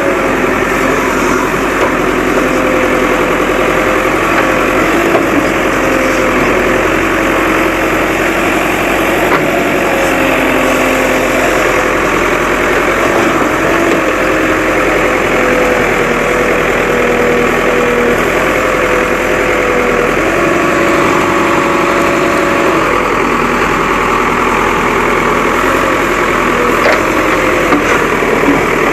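Diesel engine of a Terex backhoe loader running steadily, with a steady whine that wavers slightly in pitch.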